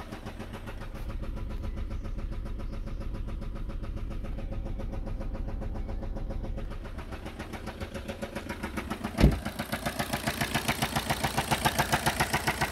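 Skoda Rapid's 1.6 TDI CXMA four-cylinder diesel idling with a rhythmic knock: the engine is knocking and is being sold as faulty. A single sharp thump about nine seconds in, after which the knocking is louder and clearer.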